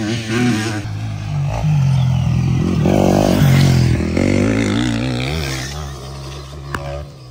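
Motocross bikes running on the track: a steady low engine hum with revs rising and falling, loudest in the middle and dropping away near the end, with a sharp click shortly before the end.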